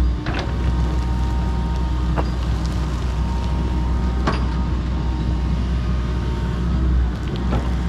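Kobelco SK85 MSR 8-ton excavator's diesel engine running steadily under work, with four sharp knocks spread through.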